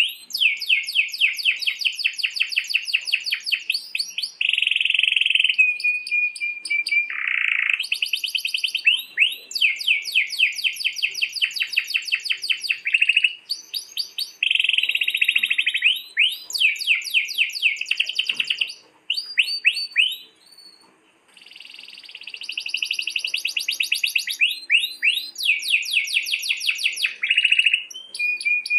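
Domestic canary singing continuously in long rolling trills: phrases of very rapid repeated notes, with a brief pause about two-thirds of the way through.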